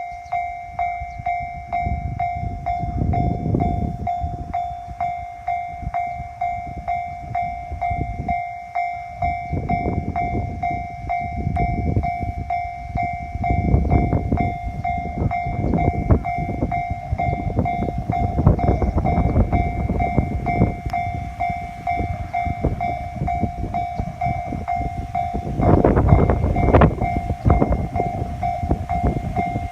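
A train passing over a level crossing, its wheels clacking over the rail joints in a steady rhythm. Under it the crossing's electronic warning bell rings on one steady tone, and the noise swells briefly about 26 seconds in.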